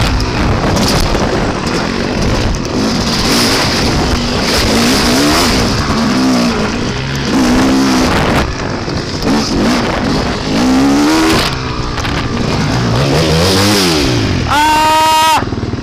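Dirt bike engine being ridden on a trail, its pitch rising and falling repeatedly as the throttle is worked, with heavy wind noise on the microphone. Near the end a strong, steady, higher-pitched tone holds for about a second.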